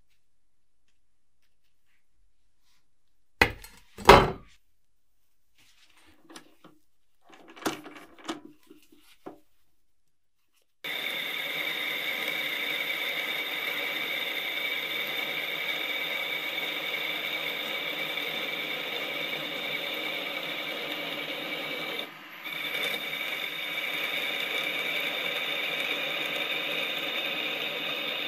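A couple of sharp knocks and some handling of tools. Then a power tool starts abruptly and runs steadily with a high-pitched whine, cutting out for a moment about two-thirds of the way through before running on.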